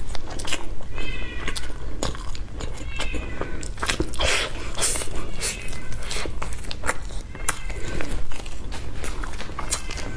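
Mouth sounds of eating a bamboo-leaf-wrapped zongzi: sharp clicks and wet smacks as sticky rice is bitten and chewed, with crackles of the leaf wrapper. Several short squeaky pitched sounds come in between, about a second, three seconds and four and a half seconds in.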